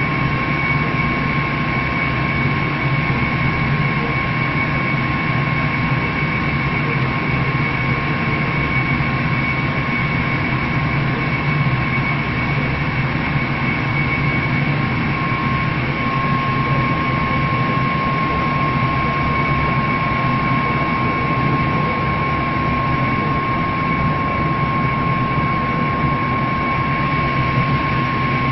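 Laser engraving machine running while it burns a texture into a wool knit panel: a steady mechanical drone with a constant high whine, unchanging throughout.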